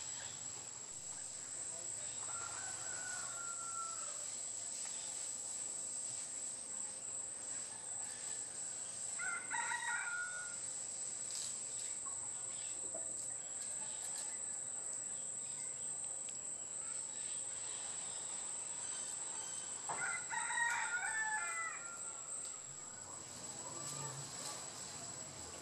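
Steady high-pitched insect whine, with two brief pitched calls, about ten seconds in and about twenty seconds in, the second the loudest.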